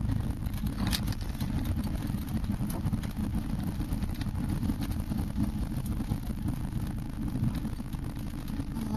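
4x4 vehicle driving slowly over a rough dirt track, heard from inside the cab as a steady low engine and road rumble.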